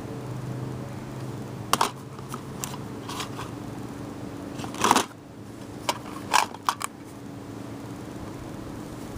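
Scattered sharp clicks and knocks of objects being handled, about nine in all with the loudest a little before the middle, over a steady low hum.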